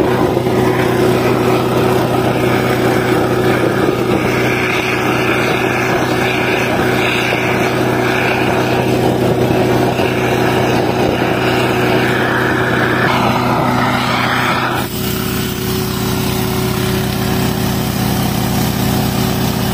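Small petrol engine of a rail-welding preheating unit running steadily, under the hiss of the preheating torch flame at the rail gap. The torch hiss cuts off suddenly about 15 seconds in, marking the end of preheating, and the engine keeps running.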